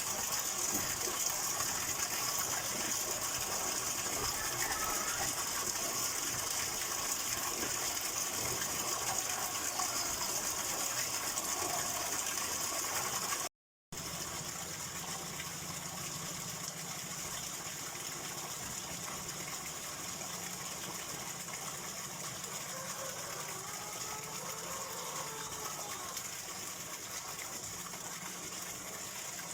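Steady rush of flowing water. It breaks off to silence for a fraction of a second about halfway through, then resumes a little quieter.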